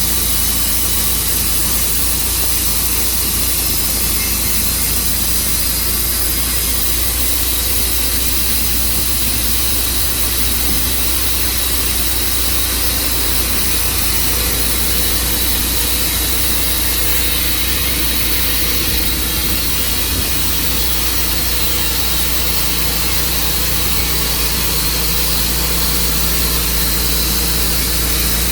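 Tru-Cut sawmill running steadily: a constant low engine drone with a hiss above it, without a break.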